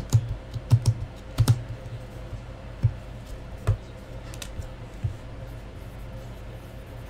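Typing on a computer keyboard: a quick run of key taps in the first second and a half, then single taps spaced further apart that die away after about five seconds.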